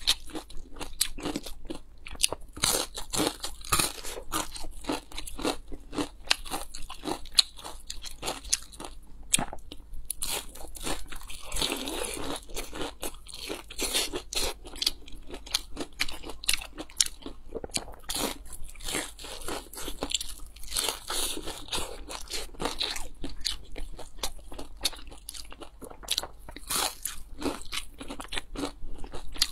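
Crisp bites and crunchy chewing of a pan-fried zucchini and coriander pancake, close to the microphone: a steady run of crackling crunches.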